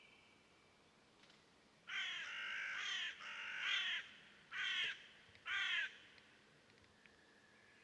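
A bird giving four loud calls in quick succession: two longer ones, then two short ones.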